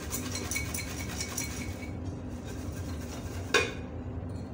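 Salted popcorn shaken in a glass bowl covered with a ceramic plate: a quick rattling and clinking of plate against glass for about two seconds. About three and a half seconds in comes a single sharp knock as the plate is moved.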